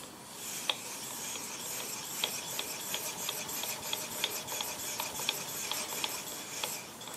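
Rotary table being indexed by hand through 72 degrees, a fifth of a turn: its handwheel cranked round steadily, giving a light, even click about three times a second.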